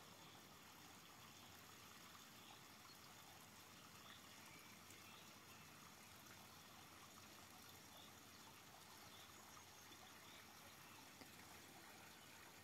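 Near silence: a faint, steady hiss of outdoor room tone.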